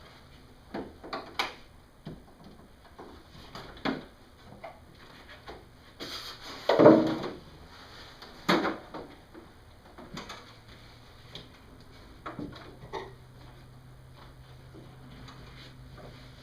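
Handling noise as a mini-split air handler and its line set and wires are worked through a hole in the wall: scattered knocks, bumps and rustling, with a louder clatter about seven seconds in and another sharp knock just after.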